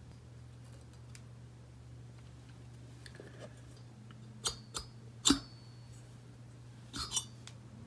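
Light metal clicks and knocks as a piston ring is pushed into the cylinder bore and squared up with the piston: a few sharp clicks about halfway through, the loudest among them, and a quick pair near the end, over a steady low hum.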